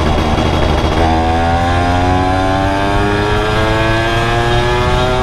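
Yamaha F1ZR's two-stroke single-cylinder engine, breathing through a CLD C1 aftermarket exhaust, accelerating under load while riding. From about a second in, its pitch rises steadily as it pulls up through the mid-range revs.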